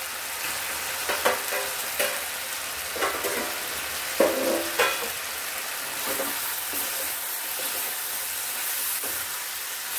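Flat beans and potatoes sizzling in a frying pan with a steady hiss while a ladle stirs them, scraping and knocking against the pan several times in the first half. The loudest knock comes about four seconds in, with a short ring.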